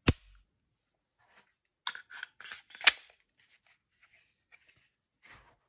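Glock 43X 9mm pistol being function-checked after reassembly: a sharp metallic click right at the start, then a run of clicks and slide noise ending in a loud snap about three seconds in, and one more click near the end.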